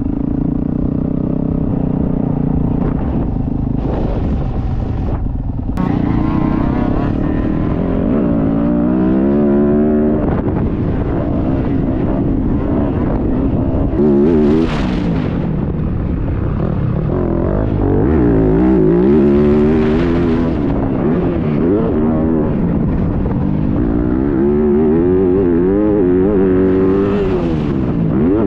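Yamaha YZ250F four-stroke single-cylinder motocross bike ridden hard on track, its engine note climbing and dropping again and again as the rider opens and closes the throttle and shifts gears. Wind rushes over the microphone, loudest briefly about four to six seconds in.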